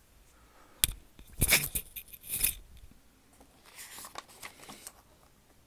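Pages of a paperback textbook being flipped and turned by hand: a sharp tap a little under a second in, then loud papery flutters and rustles, with softer rustling near the end.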